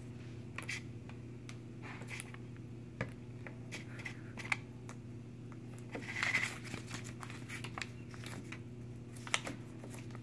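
Light clicks, taps and rustles of a small hot glue gun and wooden sticks being handled on a table, over a steady low electrical hum. A brief rustle comes about six seconds in.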